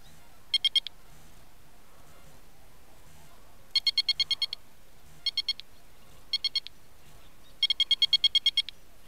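Electronic carp bite alarm beeping in five quick runs of rapid high-pitched beeps, about eleven a second, set off as the line is handled at the hanger. The longest runs come about four seconds in and near the end.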